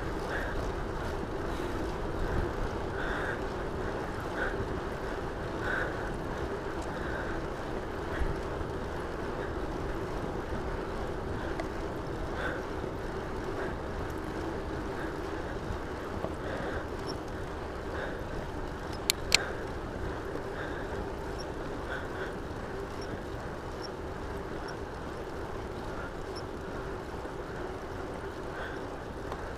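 Bicycle rolling along a paved trail: steady wind noise on the microphone over the rumble of the tyres on asphalt. Two sharp clicks come about two-thirds of the way through.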